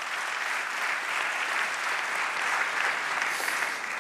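Congregation applauding, the clapping swelling and then dying away near the end.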